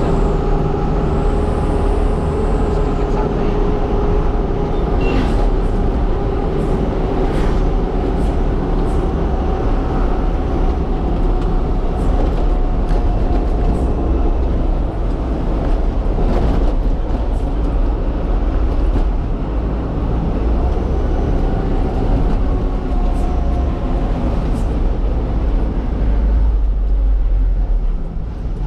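Truck engine running steadily while driving, with a continuous low rumble and road noise and a few light clicks and rattles.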